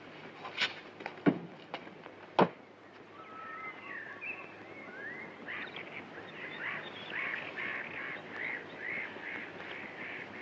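A few sharp knocks, then from about three seconds in a run of short, repeated animal calls that slide in pitch, two or three a second.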